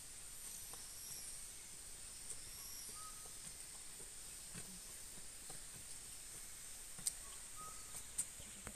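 Rainforest ambience: a steady high-pitched drone of insects, with two short whistled calls, about three seconds in and near the end, and a few sharp clicks in the last second or two.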